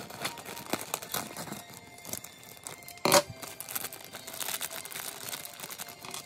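Thin clear plastic parts bags crinkling and rustling as they are handled and cut open, with one much louder sharp crackle about three seconds in.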